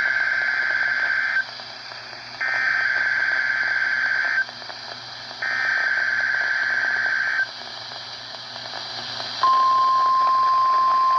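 NOAA Weather Radio Emergency Alert System test signal. The digital SAME header plays as three buzzy data bursts, each about two seconds long and a second apart. About two seconds after the last burst, the steady single-pitched 1050 Hz warning alarm tone starts and holds, marking the weekly test of the warning alarm.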